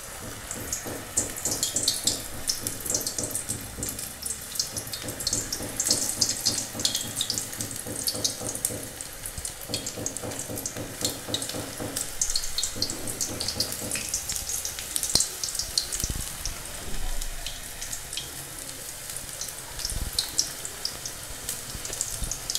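Spinach pakoras of gram-flour batter deep-frying in hot oil in a steel kadhai: a steady crackling sizzle of many small pops.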